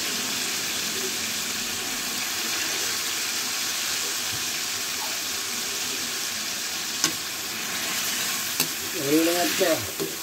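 Raw chicken pieces sizzling steadily in hot oil with tomatoes in an aluminium wok. A couple of sharp clicks come in the second half, and near the end there is a short squeak as a metal utensil goes into the pan.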